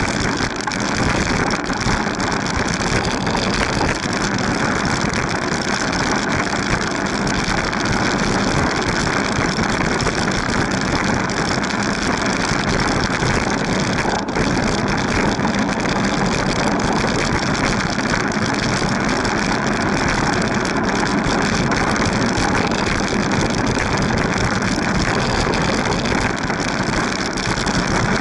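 Steady wind and road rush on the microphone of a camera mounted on a moving bicycle, with a fluctuating low rumble.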